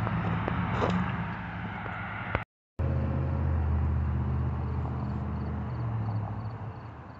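A low, steady engine hum, cut off briefly about two and a half seconds in.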